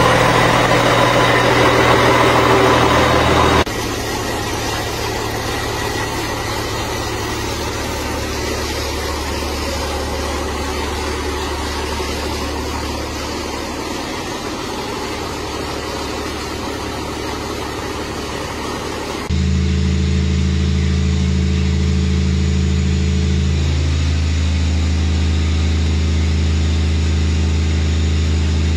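Rebuilt Cummins QSM11 inline-six diesel engine running steadily on a test stand under load. Its level and tone change abruptly twice: quieter about four seconds in, then louder and deeper about two-thirds through.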